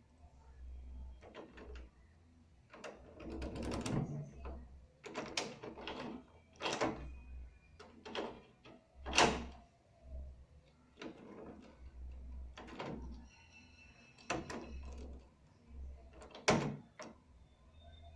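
A key being slid gently into a door lock and turned, with a series of metallic clicks, scrapes and rattles from the key working in the lock cylinder.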